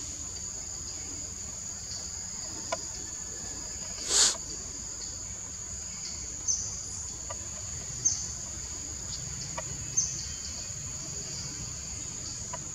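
Steady high-pitched drone of insects calling in the trees, with short sharp chirps every couple of seconds and one louder, brief burst about four seconds in.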